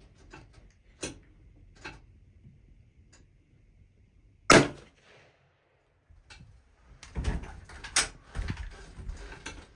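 A single loud, sharp shot at a deer about four and a half seconds in, with a short ringing tail; it is the shot that brings the deer down. A few faint clicks come before it, and rustling and knocks of movement inside the blind fill the last three seconds.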